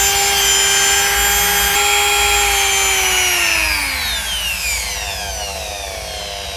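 Ryu RDG 3.2 mini die grinder's electric motor whining at full speed, with no load on it. About three seconds in, its pitch falls smoothly and settles lower as the speed is turned down.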